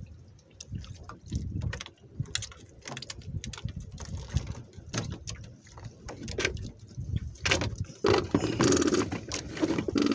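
Irregular clicks, knocks and rustling from hands working a freshly caught fish off a fishing line, getting louder and denser about eight seconds in as a hand comes close to the microphone.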